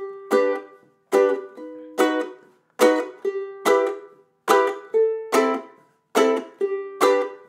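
Ukulele strumming the verse progression E minor, A minor, G, B: about a dozen sharp strums, about two a second, each chord damped short before the next.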